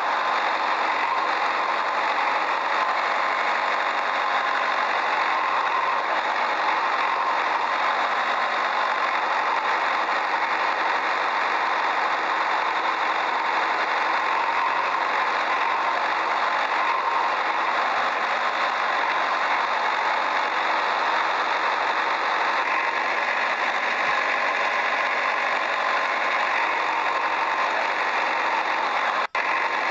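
Steady engine-like running noise, even and unbroken, with little low rumble. It cuts out briefly near the end.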